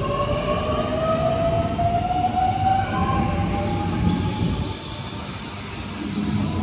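A double-deck New Intercity Fleet (D set) electric train pulling along the platform, its traction motors whining upward in pitch as it gathers speed over wheel and rail rumble. The whine fades out after about four seconds.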